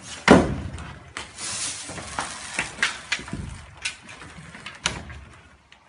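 A sharp knock of ski gear, then a ski-touring climbing skin being ripped off the ski base: the adhesive tears with a rasping sound, followed by scattered clicks and knocks as the skin and ski are handled.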